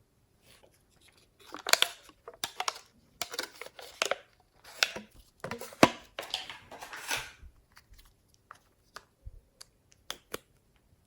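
Hands squishing and folding glossy slime, making a run of sticky crackles and pops, then a few scattered clicks near the end.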